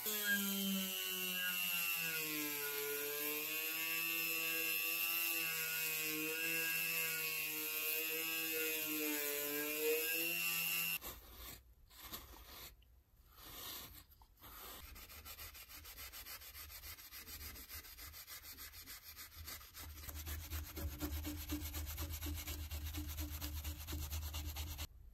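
A hand-held rotary tool whines as its small polishing wheel buffs a plated sharpener part, and its pitch wavers up and down. It stops suddenly about 11 seconds in. Then comes dry rubbing as a tissue is wiped over a nickel-plated steel disc lying on a paper towel, growing louder near the end.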